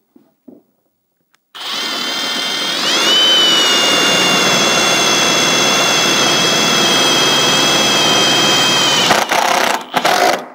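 Cordless power driver spinning an 8 mm socket to drive a self-tapping screw into the strut tower. The motor starts about a second and a half in, rises in pitch to a steady whine, runs for about seven seconds and stops, then gives two short blips near the end as the screw is seated.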